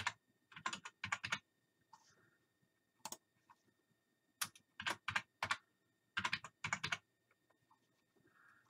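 Computer keyboard typing, in short runs of keystrokes with pauses between.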